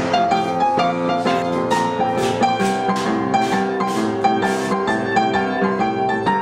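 Instrumental background music with a quick, even run of notes.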